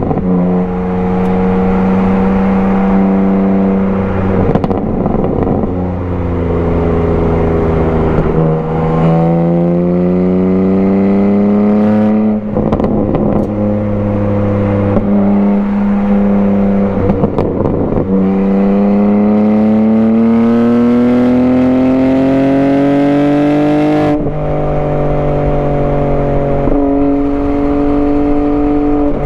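BMW G80 M3's twin-turbo inline-six, fitted with a non-resonated single midpipe exhaust, pulling hard under acceleration. Its pitch climbs steadily and then drops abruptly several times as the manual gearbox is shifted or the throttle is lifted.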